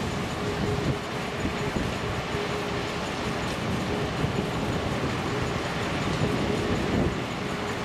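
Heavy Beiben dump truck's Weichai diesel engine running with a low rumble and a faint whine that comes and goes, as the hydraulically raised tipper body lowers after dumping its load.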